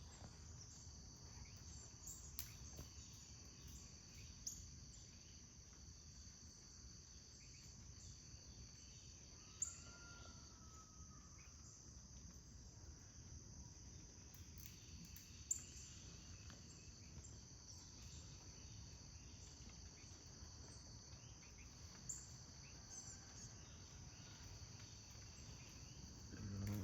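Faint, steady high-pitched chorus of insects trilling, with a few brief sharp sounds scattered through it.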